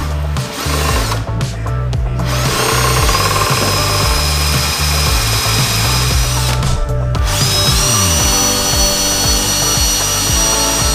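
Bosch cordless drill running at speed, boring a long bit into a London plane chair arm: two long runs of steady motor whine, with a short pause about seven seconds in. Background music underneath.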